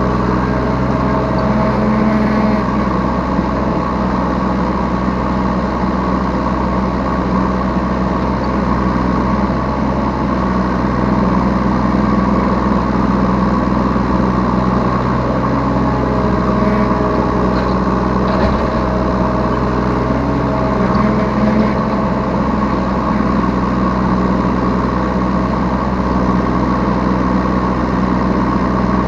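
Yanmar B3 Sigma 3-ton mini excavator's diesel engine running steadily, heard from the operator's seat. Its tone shifts every few seconds as the machine works.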